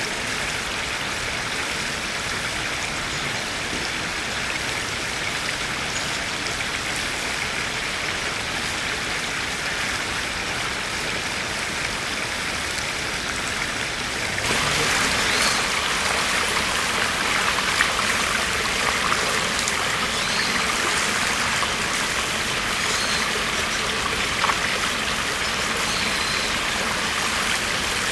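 Shallow spring-fed stream water flowing and trickling over stones and the rim of a stone spring basin, a steady rush. About halfway through it becomes louder and brighter.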